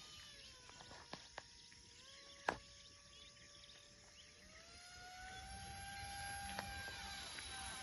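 Faint steady whine of an RC plane's electric motor in flight, its pitch dropping early, then stepping up twice as the throttle is changed. A single sharp click comes about two and a half seconds in.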